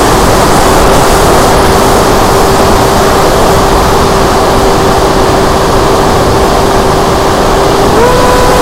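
Multiplex FunJet Ultra electric RC jet in flight, heard from its onboard camera: loud wind rush over the airframe with the steady whine of its brushless pusher motor. Near the end the whine steps up in pitch as the throttle is opened.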